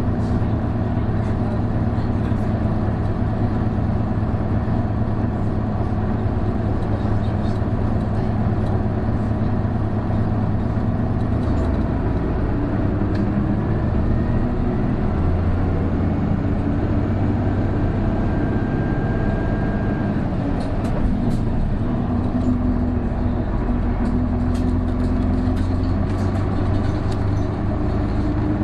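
Cabin sound of an Isuzu Erga PJ-KV234L1 bus's inline-six turbo diesel pulling on an uphill route. The engine note changes pitch as the bus shifts and accelerates, rising near the end. A thin high whine comes in about halfway and stops about two-thirds through; the uploader describes this bus's whine, heard from about 1300 rpm as the turbo comes in, as an abnormal noise like an Aisin automatic gearbox's.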